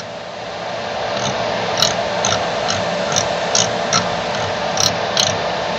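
Anycubic Kobra 2 Neo's X-axis stepper motor running as the print head moves along its rail: a steady hum that builds over the first second, with the control knob clicking through its detents about twice a second as it is turned clockwise.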